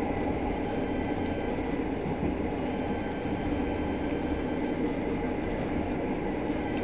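Steady rumble of a passenger train running on the rails, heard from inside the carriage, with no distinct wheel clicks standing out.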